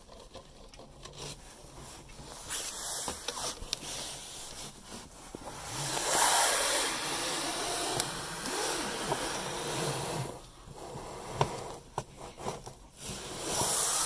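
Rustling and brushing of a sleeve and arm against the wooden nest-box opening and pine shavings while reaching for eggs. It is loudest in the middle, with a couple of sharp knocks.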